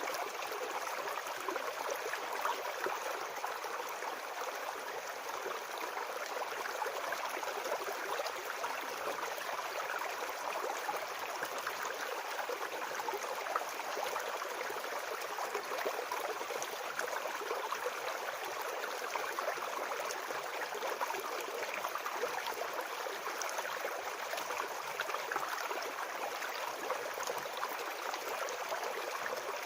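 Small forest brook babbling steadily over stones, an even rushing and gurgling of water.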